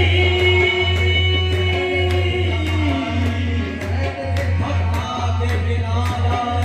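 Qawwali: a male lead voice holds a long sung note that slides down about three seconds in, backed by harmonium, tabla and rhythmic hand-clapping.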